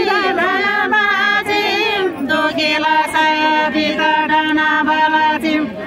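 Several women singing a Tamang fapare selo juhari together in long, held notes that bend in pitch. The singing stops near the end.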